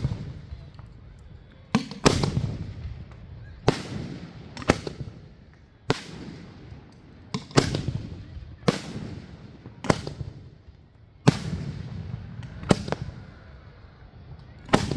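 Fireworks display: aerial shells bursting with sharp bangs about once a second, each followed by a low rumbling echo.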